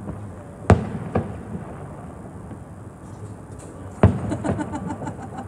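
Fireworks going off: two sharp bangs about a second in, then a louder bang near the end that breaks into a rapid crackle.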